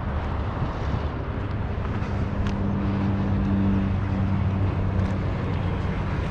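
Steady low rumble of a passing motor vehicle, whose engine hum holds steady for a few seconds in the middle. Two faint knocks about two and a half seconds apart are tennis balls being struck in a rally.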